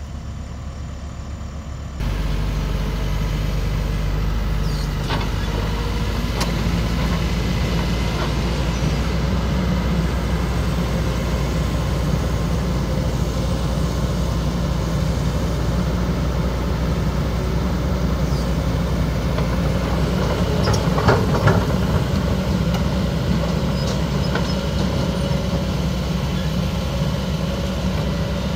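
Kobelco Super XM -8 crawler excavator's diesel engine running, stepping up to a higher, steady speed about two seconds in as the machine crawls off a low-bed trailer. There are a few metal clanks.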